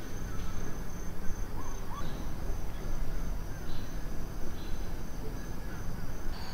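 Insects, crickets or the like, trilling steadily in a high, thin continuous note with brief breaks, over a low rumble. A couple of faint short chirps come about two seconds in.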